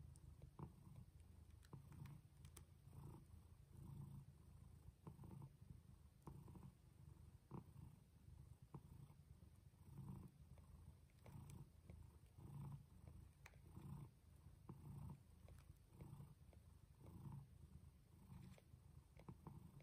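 A mother cat purring quietly while nursing her newborn kittens, the low rumble swelling and easing with each breath, a little over once a second. Faint small clicks here and there.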